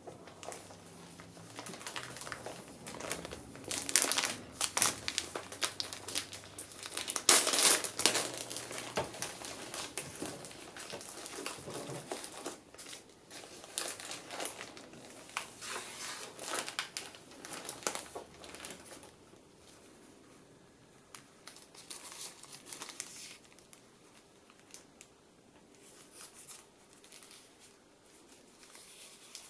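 Thin plastic film wrapping crinkling and tearing as it is peeled off a plastic tray of packaged cakes, in irregular crackling bursts. It is loudest in the first third and settles to soft, occasional crinkles near the end.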